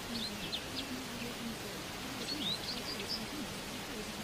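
Nature-ambience bed: a steady, even hiss with birds chirping in short high bursts near the start and again about two and a half seconds in. A faint, low wavering tone runs underneath.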